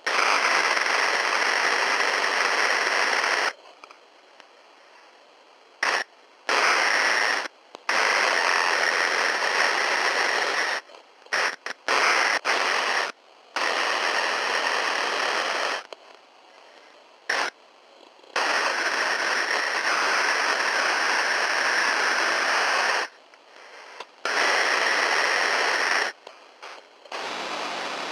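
Radio static: a loud, even hiss that cuts in and out abruptly, in bursts several seconds long broken by gaps and by a cluster of short stuttering bursts near the middle.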